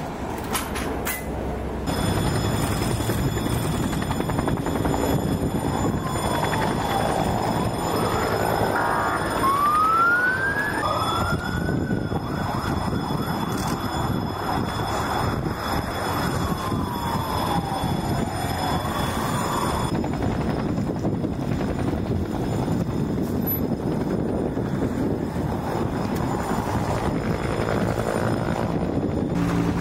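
An emergency-vehicle siren wailing, its pitch sweeping up and down a few seconds in and dying away past the middle, over steady background noise.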